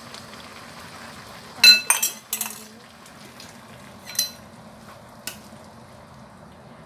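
A metal ladle clinking and scraping against a wok as curry is stirred and scooped: a quick run of sharp, ringing clinks about two seconds in, then single clinks near the middle and a little later, over the faint bubbling of the simmering curry.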